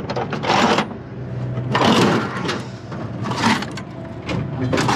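Hand tools and loose metal hardware clattering and scraping in a metal toolbox tray as they are rummaged through and lifted, in several separate bursts.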